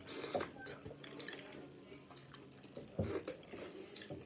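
Close-up mukbang eating sounds: wet slurping, sucking and smacking while eating sauce-covered crab legs and shrimp, loudest at the start and again about three seconds in, with small clicks between.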